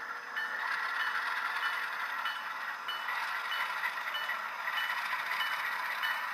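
HO scale model freight train rolling past: steady clatter of the wheels on the track, with a light tick repeating evenly about three times every two seconds.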